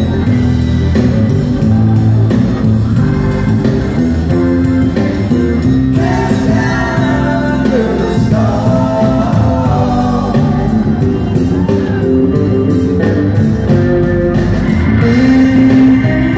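A live band playing a rock song, with organ, electric guitars, bass and drums, and women singing over it.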